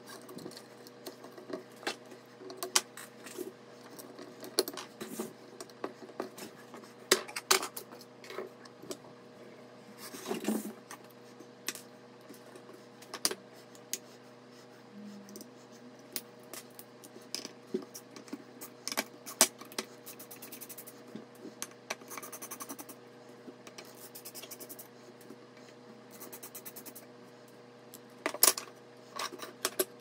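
Small clicks, taps and scrapes of computer parts being handled and unscrewed, a hand screwdriver working the screws of a graphics card, with runs of rapid fine clicking around the middle. A faint steady hum runs underneath.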